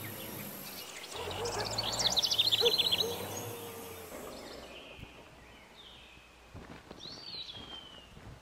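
Wild birds calling over a background hiss: a quick trill of high chirps about two seconds in, then a single whistled note sliding downward near the end.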